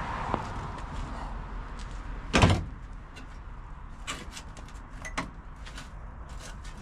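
One loud knock about two and a half seconds in, followed by a series of lighter clicks and knocks, over a low steady background hum.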